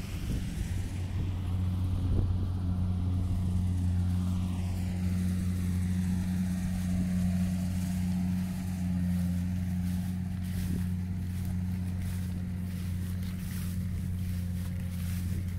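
An engine running steadily at a constant pitch, a continuous low drone, with light rustling in the last few seconds.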